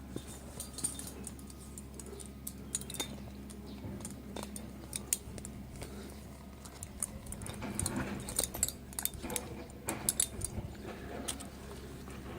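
Scattered light metallic clinks and rattles, busiest in the second half, over a steady low hum.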